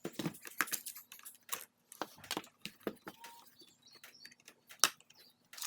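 Irregular clicks and light clatter of small plastic parts and screws being handled while a vacuum power nozzle is taken apart, with a sharper knock near the end.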